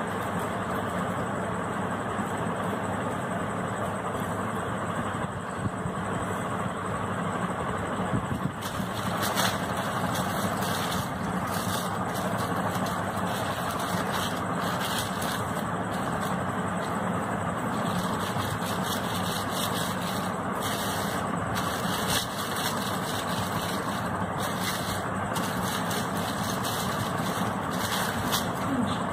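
A steady machine-like drone with a low hum. From about nine seconds in it is joined by the light crinkle of a clear plastic sheet being handled over dough rounds.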